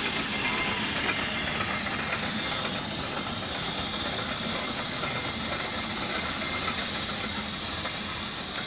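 Aveling and Porter steam tractor hissing steam, a steady high hiss with no beat to it.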